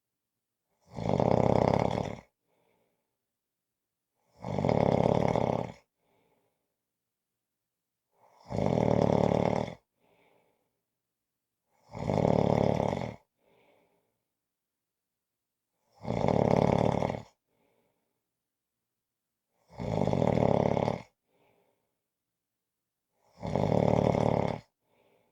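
A person snoring: seven loud snores, each lasting just over a second, coming in a steady rhythm about every three and a half seconds.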